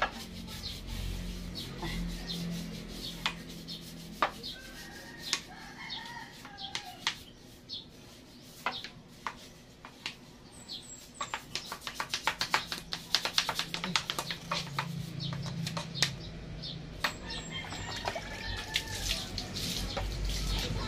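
A motorcycle being washed by hand: brush and cloth scrubbing strokes and water from a plastic basin, with a quick run of rapid scrubbing about twelve seconds in. Birds call now and then in the background.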